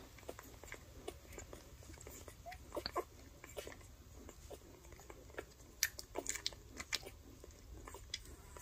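Newborn Basset Hound puppies suckling at their mother: soft, irregular wet smacking and clicking from their mouths, with a few tiny squeaks.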